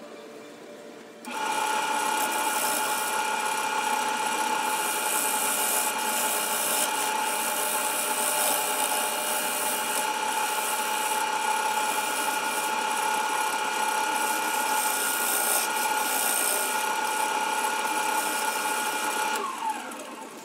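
Grizzly G0462 variable-speed wood lathe switched on about a second in, its motor running with a steady whine over a hiss as it spins an aromatic cedar bowl. Near the end the whine falls in pitch and fades.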